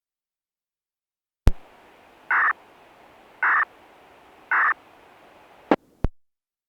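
Crow cawing three times, about a second apart, each caw short and even, over a faint hiss. A sharp click starts the sound and two clicks cut it off near the end.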